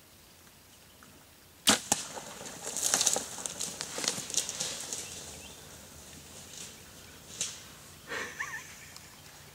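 A single sharp crack, then about two seconds of rustling and crackling as feral hogs scatter through dry brush, with a smaller snap later on.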